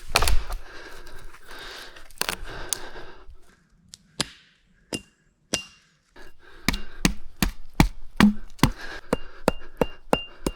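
Repeated knocks on a wooden stake as it is driven into the ground and its top is knocked round. A few scattered blows come first, then a steady run of about two to three blows a second in the second half, some with a short ringing note.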